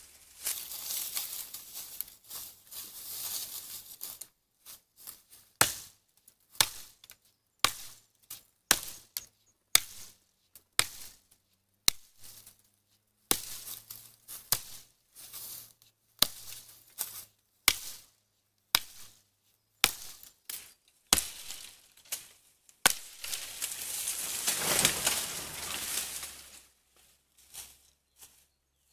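Repeated chopping blows, about one a second, of a long-handled chopping tool cutting saplings and brush. Before and after the run of blows there are stretches of rustling dry brush and grass.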